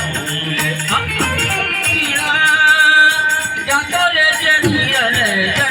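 Folk music with rattling hand percussion keeping a steady rhythm under a held, wavering melodic line, between sung verses.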